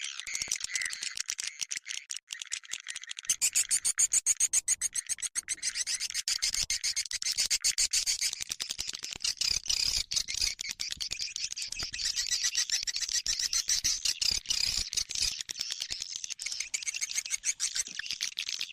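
Swiftlet call-sound recording of the kind played to lure swiftlets: continuous dense, rapid high chirping and twittering.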